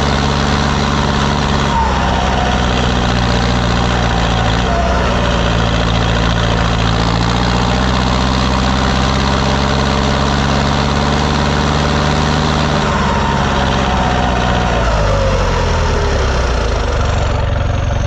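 Fendt Favorit 510 C tractor's diesel engine running steadily while pulling a field roller. Its revs drop in two steps in the last few seconds.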